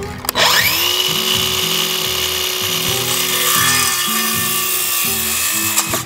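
Cordless circular saw spinning up with a rising whine, then cutting through a 1x3 board for about five seconds before stopping near the end. Background music plays underneath.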